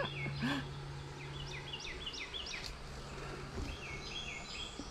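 Small bird calling in two runs of short, quick, downward-slurred chirps, the first run about a second and a half in and the second near the end, over a low steady hum.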